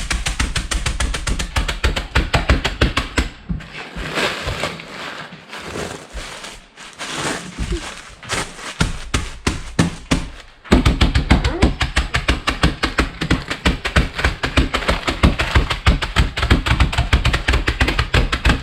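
Background music with a fast, steady drum beat. It drops out for several seconds in the middle, leaving softer irregular taps and rustling, then comes back.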